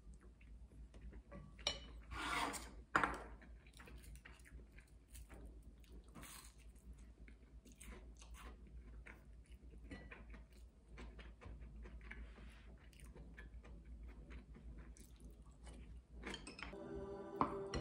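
Close-up eating sounds: chewing, and small clicks of chopsticks and a wooden spoon against a ceramic bowl, with two louder brief noises about two and three seconds in. Soft music comes in near the end.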